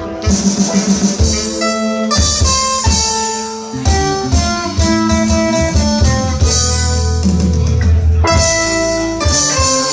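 Live reggae band playing, with guitar to the fore.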